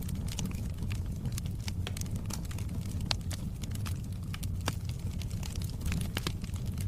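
Wood fire crackling in a fireplace: irregular small pops and snaps over a steady low rumble, with one sharper pop about three seconds in.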